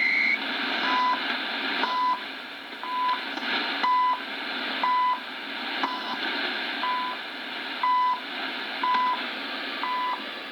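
CHU shortwave time signal: 1 kHz second pulses, a short beep once every second, heard over steady shortwave receiver hiss. A brief higher-pitched tone sounds right at the start.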